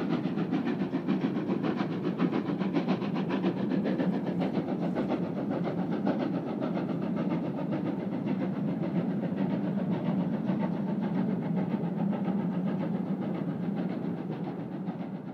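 Steam-hauled train running along the line: a dense, even stream of rapid exhaust beats and rolling noise that begins to fade near the end.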